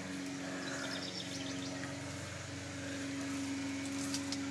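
Steady mechanical hum with a held low tone, with a few faint light ticks about a second in and again near the end.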